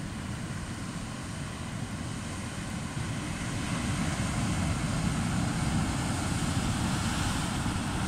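Ocean surf breaking and washing over shoreline rocks, mixed with wind buffeting the microphone: a steady rushing noise that grows a little louder about three seconds in.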